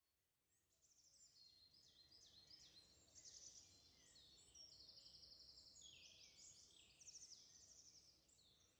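Faint birdsong: many quick chirps, rapid trills and short falling whistles from several birds, over a faint low background noise.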